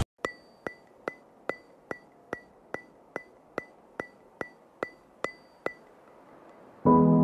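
A ticking sound effect: about fourteen sharp, evenly spaced ticks, between two and three a second, each with a brief bright ring. Near the end, background music with piano notes comes in.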